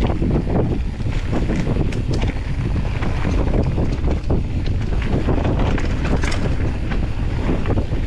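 Wind buffeting the microphone over the rumble of a mountain bike running fast down a dirt singletrack trail, with scattered sharp clicks and knocks from the bike rattling over roots and rocks.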